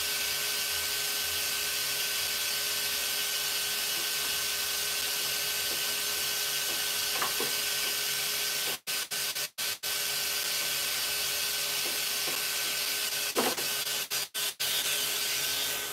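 Electric pet hair clippers running with a steady buzz while trimming a long-haired Persian cat's coat. The sound drops out briefly a few times.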